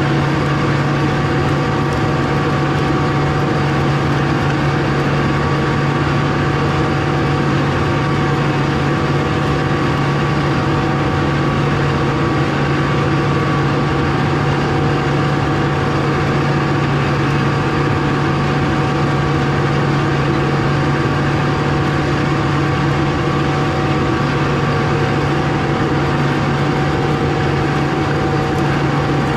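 Tractor engine running at a steady, unchanging speed.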